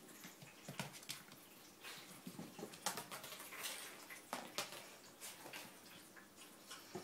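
A puppy scampering on a wooden floor during play: scattered claw clicks, scrabbling and light knocks, irregular throughout.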